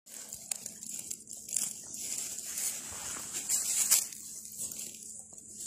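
Dry pine needles and dead leaves crunching and rustling underfoot in uneven steps, louder about four seconds in.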